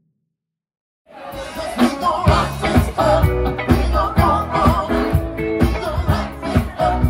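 Music with a steady beat and heavy bass, starting suddenly about a second in after silence.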